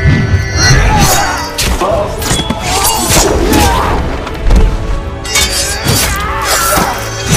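Dramatic film score over a sword-and-shield fight, with repeated heavy thuds, clashes and crashes throughout.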